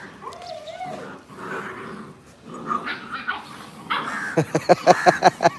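Huskies vocalizing while the puppies play: a wavering cry about half a second in, then a fast run of short yaps near the end, about eight a second.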